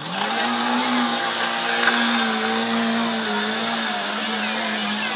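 Sport bike engine revving up sharply at the start, then held at high, fairly steady revs with slight wavers in pitch during a parking-lot stunt.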